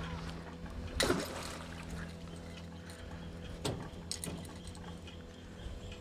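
Water sloshing around a small fishing boat, with a faint steady hum under it. Two sharp sounds stand out, about a second in and a little past halfway, with a few small clicks just after the second.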